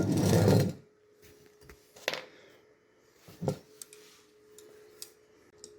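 Handling a T-square on a vinyl floor plank for a cut: a short scraping rush at the start, then a few light knocks and taps spaced about a second or more apart.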